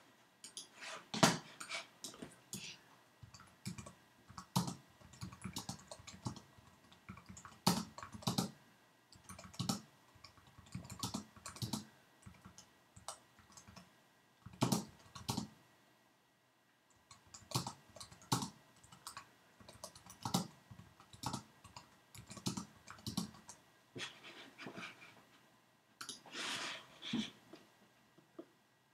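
Typing on a computer keyboard, with irregular runs of keystrokes and clicks broken by short pauses.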